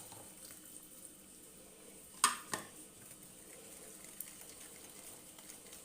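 Freshly squeezed lemon and orange juice poured from a glass into a bowl of egg, sugar and oil batter: a faint liquid trickle. A sharp clink of glass or utensil on the bowl about two seconds in, then a lighter one just after.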